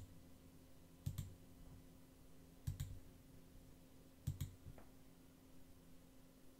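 Computer mouse button clicking faintly, each click a quick double tick of press and release, four times about every one and a half seconds, over a faint steady hum.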